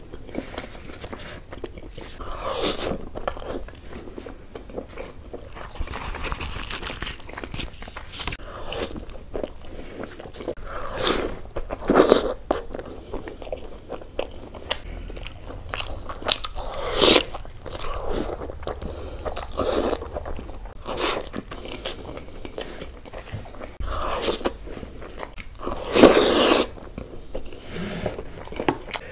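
Close-miked mukbang eating: wet chewing, biting and lip-smacking of a person eating spicy Indian chicken dishes with his fingers. The sounds are irregular, with a few louder smacks, the loudest near the end.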